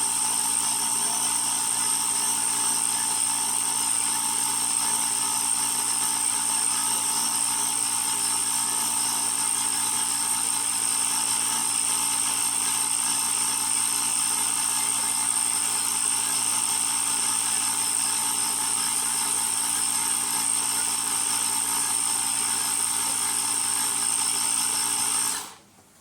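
Small electric air compressor of a portable jump starter running steadily with a high whine, then cutting off abruptly near the end.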